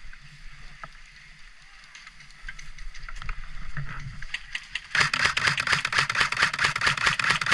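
Airsoft gunfire: a few scattered shots, then from about five seconds in a loud, rapid stream of sharp cracks and clatter, like full-auto fire close by.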